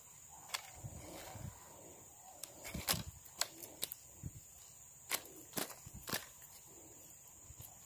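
A freshly caught hampala flapping and knocking against a dry wooden log and the hard plastic lure in its mouth, heard as a string of sharp, irregular knocks and slaps, the loudest about three seconds in.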